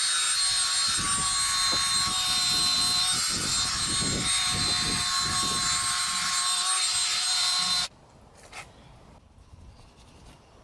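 Electric drill spinning a cloth buffing wheel against a car door handle: a steady motor whine over a rubbing hiss, which stops abruptly about eight seconds in.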